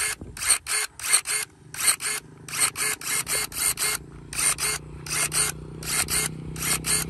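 Cordless electric pruning shears working their blades over and over, each stroke a short mechanical snap-whir. The strokes come mostly in quick pairs, two to three a second, with a faint steady low hum underneath from a few seconds in.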